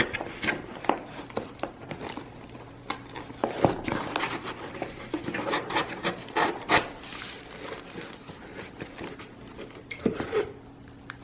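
Hands unwrapping the packaging around a shipped plant: irregular rustling, crinkling and rubbing that stop shortly before the end, over a faint steady low hum.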